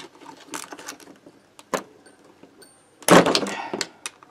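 Metal tools and engine parts handled on a wooden workbench while a moped engine crankcase is taken apart: a few light knocks and clinks, then a louder metallic rattle and scrape lasting under a second, about three seconds in.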